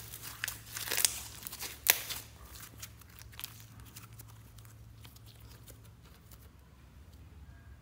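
Glitter slime being stretched and pulled apart by hand: a run of sharp, sticky crackles and pops, loudest about one and two seconds in, then fading to faint scattered crackling.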